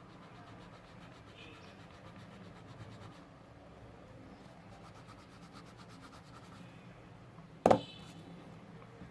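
Soft brush rubbing over pencil graphite on paper to blend the shading, faint and steady. One sudden, short, loud sound cuts in near the end.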